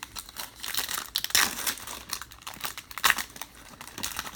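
Crinkling and tearing of a foil trading-card pack wrapper as it is ripped open by hand, in irregular crackles with louder rips about a second and a half in and about three seconds in.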